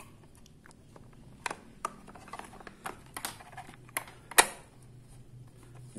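Plastic housing of a Winner analog multimeter being pressed shut and handled: a series of light clicks and knocks, the loudest about four and a half seconds in.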